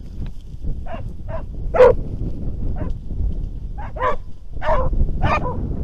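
Hunting hounds barking and yelping in the reeds, about eight short barks at irregular intervals, the loudest about two seconds in, as the pack gives tongue while chasing game. Strong wind rumbles on the microphone underneath.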